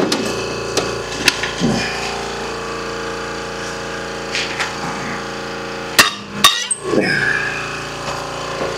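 Steel breaker bar and socket being forced against a seized wheel lug nut: light clinks, then two sharp clanks half a second apart about six seconds in, over a steady hum.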